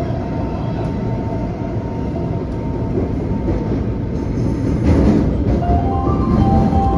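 Taipei Metro train running, heard from inside the car: a steady rumble of wheels and motors on the track. Near the end a series of short tones at changing pitches starts over the running noise.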